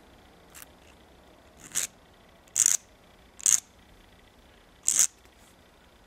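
A small hand file scraping the metal shaft of a Lasonic TRC-931 function switch in five short, separate strokes, the first faint and the later ones louder. The file is taking down the pressed-out edges on the shaft so the gear will slide back on.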